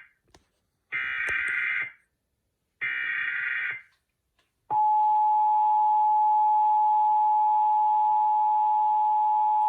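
Emergency Alert System SAME header data bursts, warbling buzzy tones each about a second long with silences between, opening a Required Monthly Test; about halfway through, the steady two-tone EAS attention signal starts and holds.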